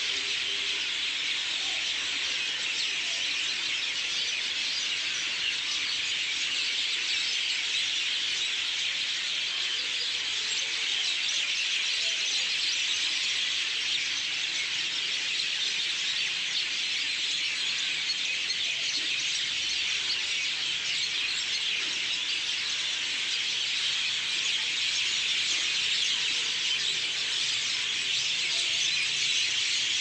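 Evening chorus of a large flock of birds in the trees, many calling at once: a dense, continuous high-pitched chatter of overlapping chirps at a steady level.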